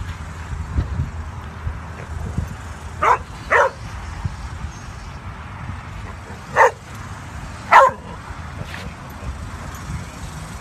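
Dog barking four times: two barks close together about three seconds in, then two more a second apart around the seven-second mark, over a steady low background rumble.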